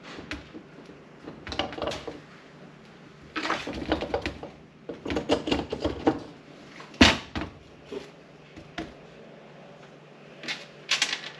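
Cylinder barrel of a KTM 200 two-stroke engine being wiggled down over the piston onto the crankcase: short spells of metal clicking and scraping, with one sharp knock about seven seconds in.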